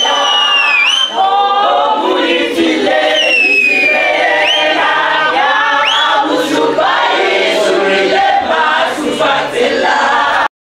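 A group of women singing together unaccompanied, with high sliding notes over the voices. The singing cuts off suddenly near the end.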